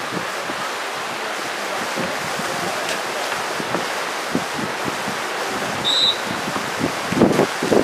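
Wind buffeting the microphone in wet, rainy weather: a steady hiss with irregular low thumps that grow stronger near the end. A short, high whistle-like tone sounds once, about six seconds in.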